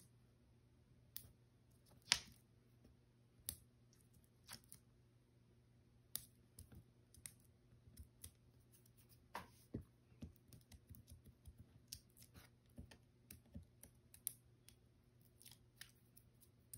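Quiet, scattered light ticks and small clicks of card pieces and foam adhesive squares being handled and pressed on a craft mat, a little more frequent in the second half, over a faint steady low hum.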